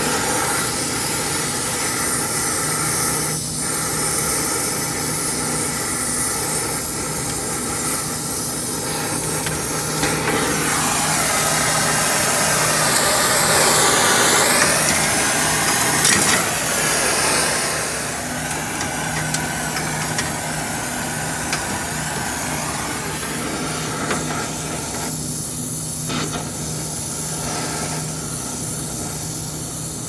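Brazing torch flame hissing steadily as it heats copper refrigerant line joints. A louder, wavering hiss and sizzle lasts from about ten to eighteen seconds in, as a wet rag is pressed onto the hot fitting.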